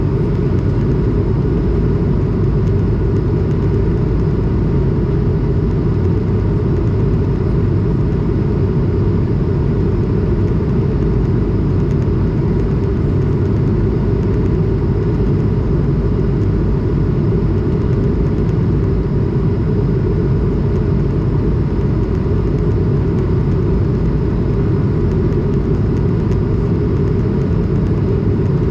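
Steady cabin noise inside an Airbus A220 in flight: a constant low rumble of airflow and its Pratt & Whitney geared turbofan engines, with a faint steady hum above it.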